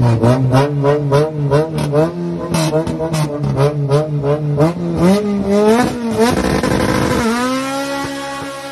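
Honda Civic hatchback's VTEC four-cylinder engine held high against the rev limiter at the start line, the note cutting in and out about four times a second, then launching with a rising engine note as the car pulls away and fades.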